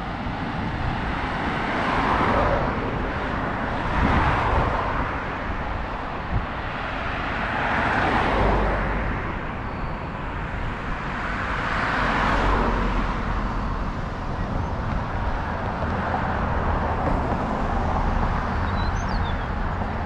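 Road traffic on a busy city avenue: cars passing one after another, each one's tyre and engine noise swelling and fading, with a deeper rumble from a heavier vehicle around the middle.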